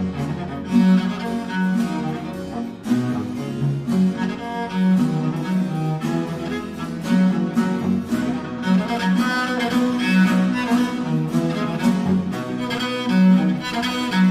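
Background music: a cello concerto, a solo cello playing a moving line of notes over string accompaniment.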